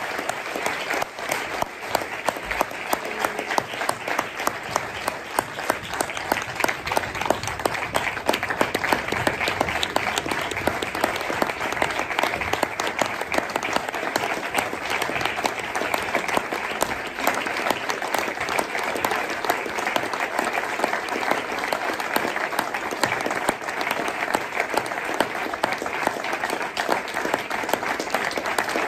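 Audience applauding: many hands clapping in a steady, unbroken patter.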